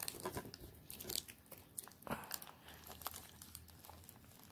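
Faint scattered clicks and light rustling from plastic DVD cases being handled, with one slightly louder click about two seconds in.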